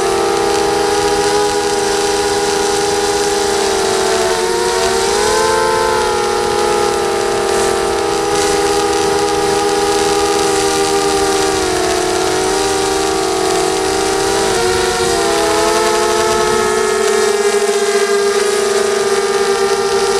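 ZMR250 mini quadcopter's brushless motors and propellers whining in flight, heard from the onboard camera. Several close tones sound together over a hiss, dipping and rising as the throttle changes about five seconds in and again near fifteen seconds.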